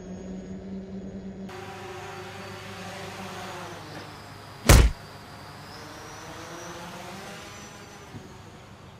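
Amazon Prime Air multirotor delivery drone's propellers humming steadily, the pitch wavering a little later on. One short loud thump comes about halfway through.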